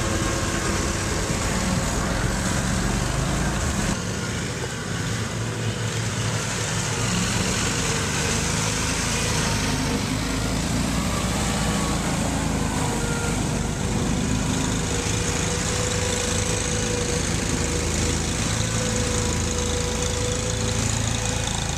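Small engine of a tracked amphibious 8x8 ATV running steadily as the machine crawls through mud and water.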